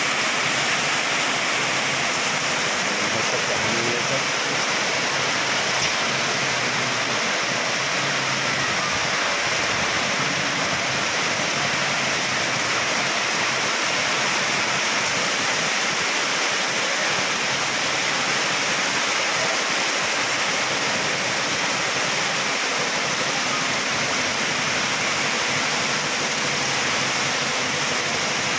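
Heavy rain pouring down steadily, a constant hiss of falling water with no letup.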